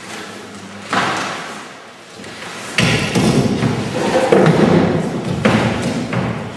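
Cardboard boxes and panels being handled: a sharp thump about a second in, then from about three seconds in a long run of loud cardboard scraping, rubbing and knocking as pieces are pushed and shifted.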